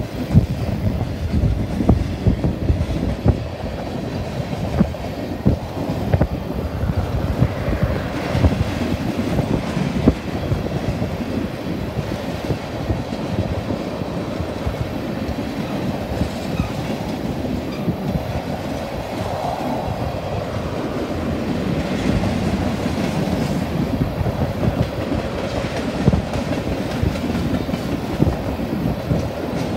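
Freight train of tank cars rolling past: a steady rumble and rattle of steel wheels on the rails, with frequent sharp clacks throughout.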